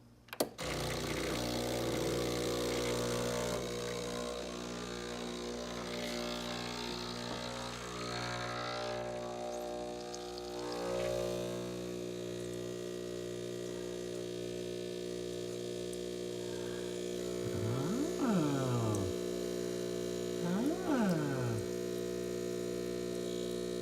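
Espresso machine's pump switching on with a click, then running with a steady buzzing hum as it pulls a double shot of espresso. Two short sweeping tones are heard over the hum about three-quarters of the way through.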